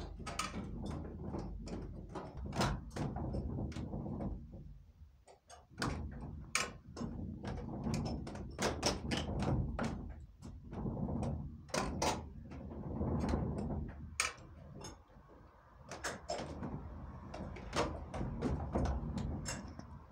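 Machinery of a working windmill turning in the wind: a low rumble with frequent irregular wooden knocks and clacks, quieter briefly about five seconds in.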